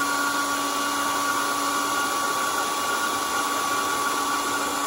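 A 20-watt, 12-volt fan running inside a 3D-printed mini hand dryer housing: a steady rush of air with a steady whine. Right at the end its pitch starts to drop as the fan spins down.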